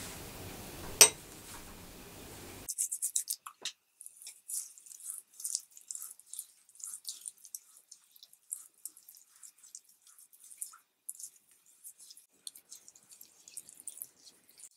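A single sharp click about a second in, then soft, irregular wet crackles of a thick rice-flour, tomato and baking soda paste scrub being worked.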